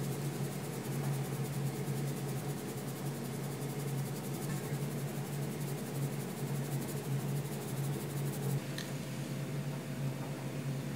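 Steady low hum with an even hiss over it, room noise from the kitchen, with a faint click near the end.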